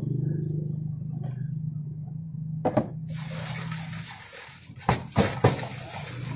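French fries being tossed in a stainless steel bowl: a steady rushing rattle of fries sliding over the metal, with a few sharp knocks of the bowl, starting about three seconds in. Before that, a low steady hum.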